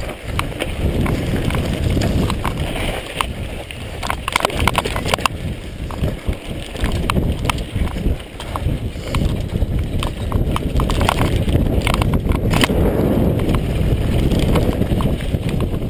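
Mondraker Kaiser downhill mountain bike descending a gravel and dirt trail at speed: steady wind rumble on the microphone, with rapid rattling clicks from the bike and its tyres over loose stones.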